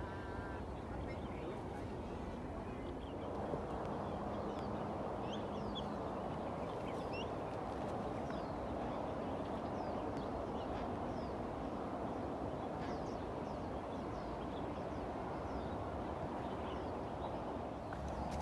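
Outdoor trail ambience: a steady rushing noise that grows louder about three seconds in, with small birds chirping briefly now and then.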